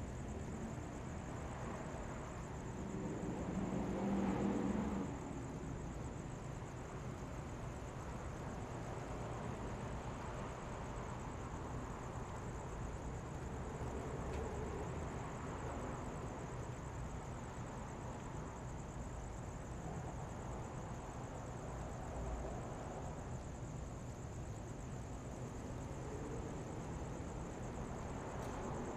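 Quiet city street ambience: a steady low traffic rumble with a vehicle passing close about four seconds in, the loudest moment, and fainter passes later on. A thin steady high hiss sits over it all.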